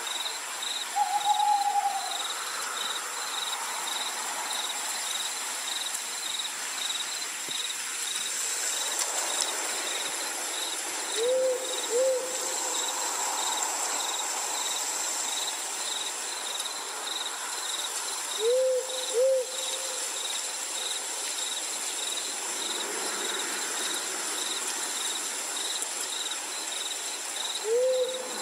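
Night ambience: an owl hooting in short pairs every eight seconds or so, with one higher call about a second in, over steady cricket chirping at about three chirps a second.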